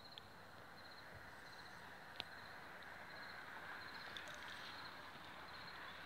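Faint evening ambience: crickets chirping in short, high, repeated trills over a steady low hiss of background noise, with a single click about two seconds in.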